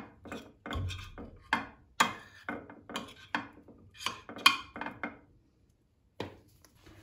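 A metal spoon scraping and clinking against a glass baking dish as thick pastry cream is spread over its bottom: a string of short scrapes and clicks. It goes quiet about five seconds in, then gives one more click.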